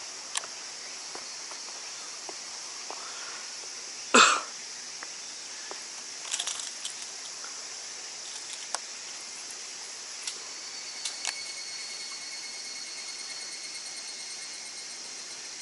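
Footsteps and scrapes of someone climbing over bare rock, with scattered clicks and one loud knock about four seconds in. A steady high hiss of outdoor background runs underneath, and a thin steady high tone joins it in the last few seconds.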